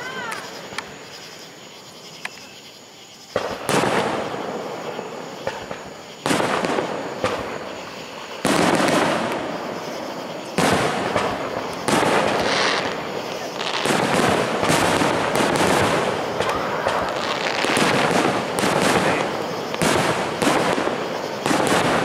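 Aerial fireworks shells bursting: sharp booms, each fading slowly, spaced a couple of seconds apart at first and then coming close together and overlapping over the second half. A short falling whistle sounds right at the start.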